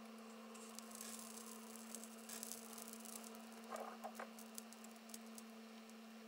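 Faint steady hum with soft, scattered crackles and ticks, a small cluster about two and a half seconds in and again near four seconds, while a heating tool is held on a chip to melt its solder.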